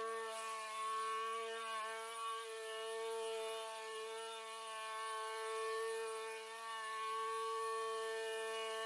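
Propane-powered Aztec high-speed burnisher running steadily, its engine and spinning pad giving a constant humming whine that dips slightly in pitch about two seconds in. It is burnishing guard-coated polished concrete to the final 1500-grit finish.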